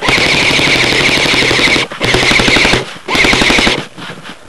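Airsoft rifle firing loudly on full auto: one burst of nearly two seconds, then two shorter bursts.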